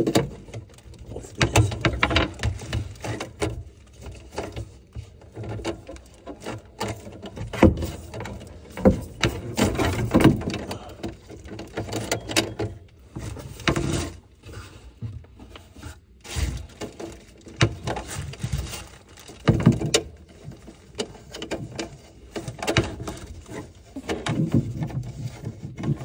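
PVC drain pipe sections being handled and pushed together under a sink: irregular plastic knocks, clicks and rubbing, with rustling of a plastic sheet.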